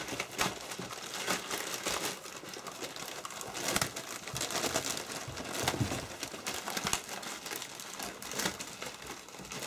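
Clear plastic zip bag of dried horse-lung treats crinkling and rustling irregularly as two Dalmatian puppies nose and paw at it, trying to get it open.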